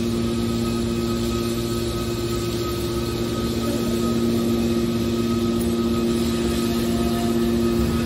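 Hydraulic power unit of a scrap metal baler running, a steady machine hum with constant tones over it.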